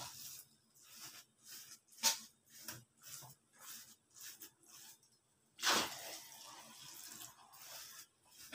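Metal spatula stirring and scraping a thick, sticky mass of biko (glutinous rice cooked in coconut milk) in a wok: irregular wet scrapes and clicks, a sharp one about two seconds in and a longer scrape near six seconds.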